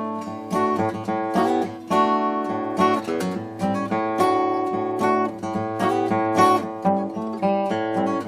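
Washburn Timbrewood WD-48S steel-string acoustic guitar played by hand: a steady run of picked chords and single notes, each left ringing. The guitar has a newly fitted bone saddle and a fresh setup.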